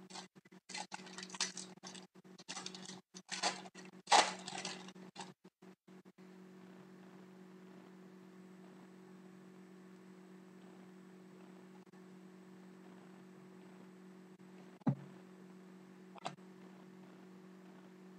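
Foil wrapper of a trading-card pack crinkling and tearing as it is opened, an irregular crackle for about the first six seconds, loudest around four seconds in. Then only a steady low electrical hum, with two light clicks near the end as the cards are handled.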